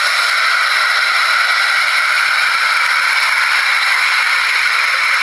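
Loud, steady static-like hiss with no low end, unchanging throughout; no engine note or voice stands out in it.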